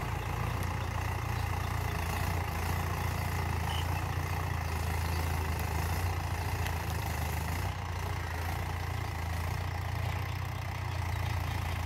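Mahindra tractor's diesel engine running steadily as it pulls a cultivator through the soil.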